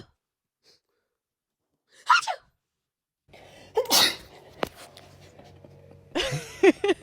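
A person fake-sneezing 'achoo' at a dog: two sharp sneezes, about two and four seconds in, the second louder, with a short click after it. Near the end come short pitched vocal sounds.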